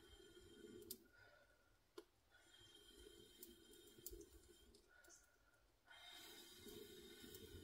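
Faint, long breaths blown into a small wood campfire to liven the coals, three blows in a row, with a few light crackles from the burning sticks.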